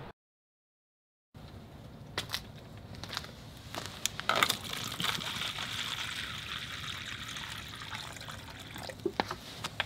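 Water poured from a plastic bottle into a plastic bowl: a steady trickling pour starting about four seconds in and lasting roughly four seconds, with a few light clicks before it.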